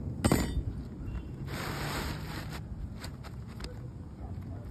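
Asphalt roof shingle being pried up and worked by hand: a sharp knock about a third of a second in, then a rasping scrape lasting about a second, then light scattered taps and scrapes as the tab is lifted.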